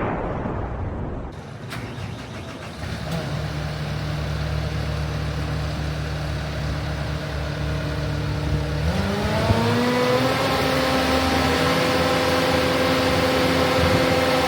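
Caterpillar C3.8 four-cylinder diesel engine of a CAT 299D2 skid steer loader running at a steady low idle. About nine seconds in, the throttle is raised: engine speed climbs smoothly to a higher steady speed and holds there.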